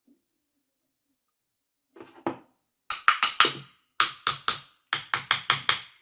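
Sharp taps on the drill's parts, a couple about two seconds in, then quick runs of three or four knocks: a part of the Hilti hammer drill being knocked into its seat during reassembly.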